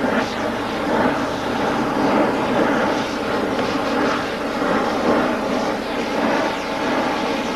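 Gas cutting/heating torch flame burning with a steady rushing noise while it heats a steel pipe red hot so the pipe can be bent.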